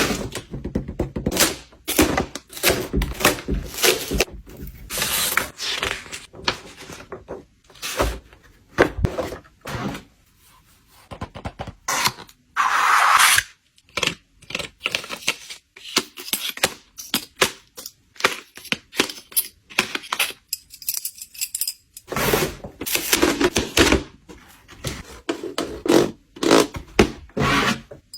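Packaging and boxed products being handled and set down: a busy run of short thunks, knocks and scrapes, with one longer scraping rustle about halfway through.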